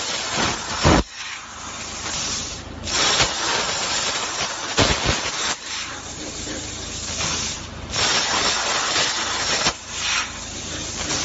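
CNC cutting head hissing steadily as it cuts steel sheet, dropping off briefly between cuts every couple of seconds, with a few short, louder bursts.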